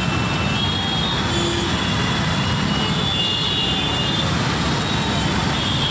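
Steady traffic noise from a dense, slow-moving jam of cars, auto-rickshaws and motorcycles, with car horns sounding now and then.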